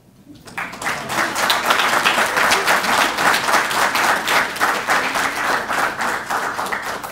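An audience applauding, many people clapping. It starts about half a second in, holds steady and fades near the end.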